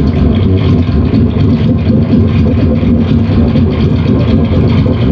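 Harsh noise music from guitar effects pedals played through an amplifier: a loud, dense, continuous wall of distorted noise, heaviest in the low end, with a fast fluttering texture.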